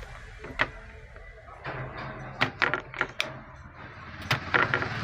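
Scattered sharp clicks and taps of tools on a circuit board while an IC is worked loose during desoldering, over a low steady hum.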